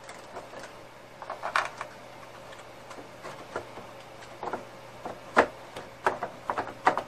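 Irregular small plastic clicks and rattles of wire-harness connectors and wiring being worked loose by hand from a synthesizer's power supply board, with a sharp click a little past five seconds in and a quick run of clicks near the end.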